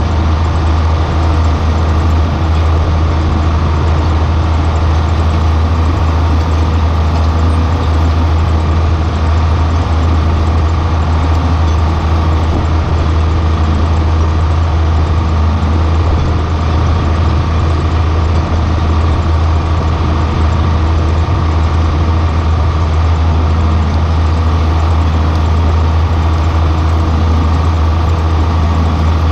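John Deere 4440's turbocharged six-cylinder diesel running steadily under load while pulling a corn planter, a constant deep hum with no change in pace.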